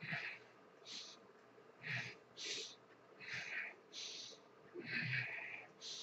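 A man breathing hard from the exertion of bodyweight dips: short, noisy breaths in and out, a little more than one a second.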